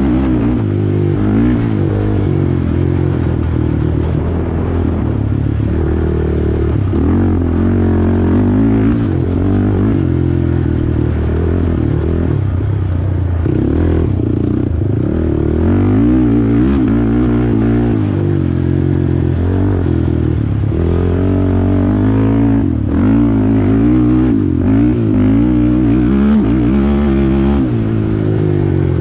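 2004 Honda TRX450R quad's single-cylinder four-stroke engine revving up and down over and over as it is ridden hard along a dirt track, with the throttle opened and closed through the turns and rises.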